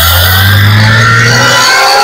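Supercharged 3.0-litre V6 of a 2016 Audi S4 on a stage 1 tune, accelerating: the supercharger whine climbs steadily in pitch over a low, steady engine drone. The sound is heavily noise-filtered.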